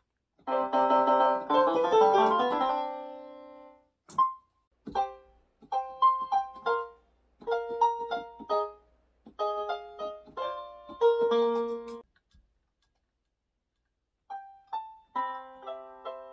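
A small electronic keyboard played in a piano voice, picking out a song's intro: a cluster of chords in the first three seconds, then short melodic phrases. The playing stops for about two seconds near the end, then starts again.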